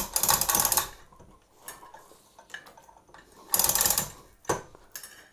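Hand-operated chain hoist being hauled: two bursts of fast metallic rattling as the chain runs through, one at the start and one about three and a half seconds in, with a single sharp clack just after the second burst.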